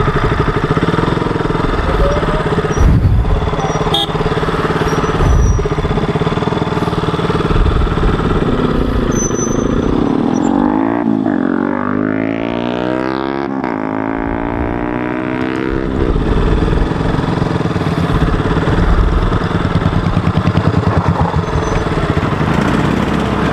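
KTM RC motorcycle's single-cylinder engine running on the move, with a sweeping change in pitch for a few seconds about halfway through.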